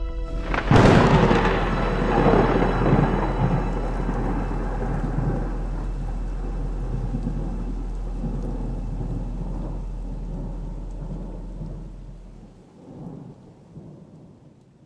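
A thunderclap cracks loudly a little under a second in, then rolls into long rumbling thunder with steady rain that slowly fades out over about twelve seconds. A short tone sounds just before the crack.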